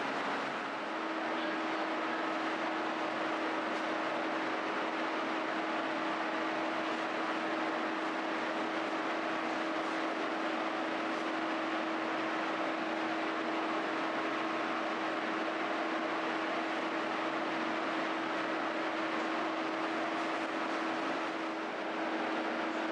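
Steady machine noise: a constant rushing sound with a steady low hum that comes in about a second in and drops away near the end.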